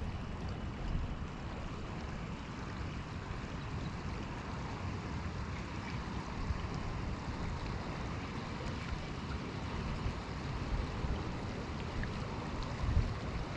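Steady rush of flowing river water, with a brief bump near the end.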